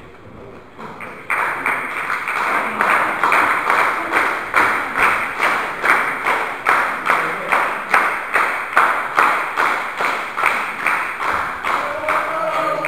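Small crowd clapping in unison, a steady beat of about two and a half claps a second that starts suddenly about a second in. A voice calls out over the clapping near the end.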